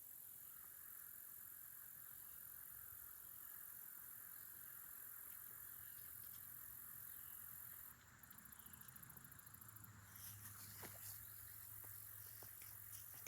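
Faint outdoor ambience near a pond with a steady high buzz; a rapid fine ticking comes in for about two seconds past the middle, followed by a low hum and a few light clicks near the end.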